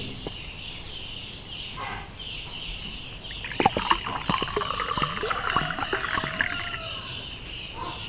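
Tuak (sugar-palm wine) poured from a glass bottle into a drinking glass. The gurgling, splashing pour starts a few seconds in, with a tone that rises as the glass fills, and dies away near the end as the head of foam settles.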